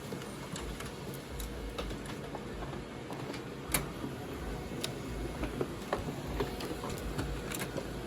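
HP Color LaserJet Pro MFP 4301fdw laser printer running, a steady hum with scattered light clicks and one sharper click a little under four seconds in.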